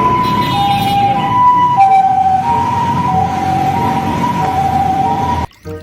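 Ambulance siren in a two-tone hi-lo pattern, alternating between a higher and a lower note a little more than once a second, over a low rumble; it cuts off suddenly near the end.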